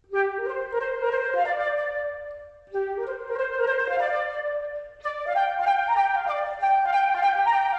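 A single woodwind instrument playing a melody in three phrases, with short breaks about 2.7 and 5 seconds in.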